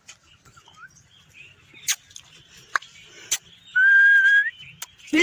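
A person whistles one clear, held note lasting under a second, rising slightly. A few sharp clicks come before it.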